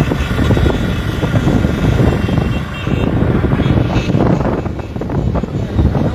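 Dense, steady drone of many motorcycle engines riding together in a convoy.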